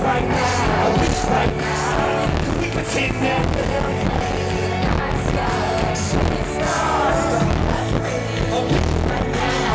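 Live concert music heard from the crowd: a woman singing a slow hook into a microphone over the backing track and a steady beat.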